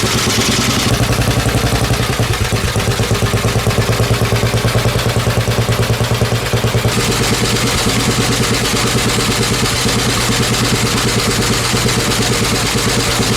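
Four-stroke petrol engine running steadily with a rapid, even pulse; the sound cuts off abruptly at the end.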